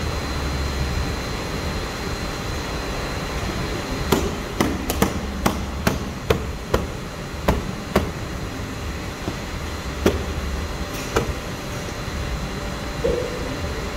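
A quick run of about nine sharp knocks in four seconds, then two more spaced out, over a steady workshop hum.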